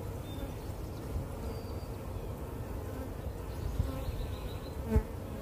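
Honey bees buzzing steadily, a swarm clustered on and around a queen cage, with a single sharp click near the end.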